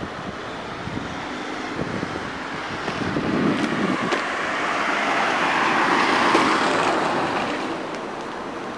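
Road and tyre noise of a moving car heard from inside the cabin, with a passing vehicle swelling louder through the middle and fading away near the end.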